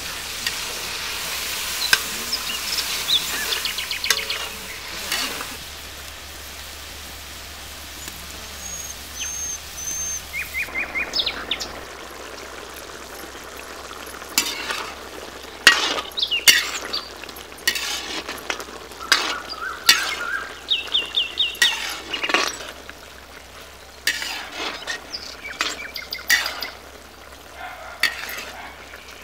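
Mushroom curry sizzling and frying in a black iron kadai, loudest in the first few seconds. From about ten seconds in, a metal utensil scrapes and clinks against the pan in many short, sharp strokes as the curry is stirred. A few bird chirps come through now and then.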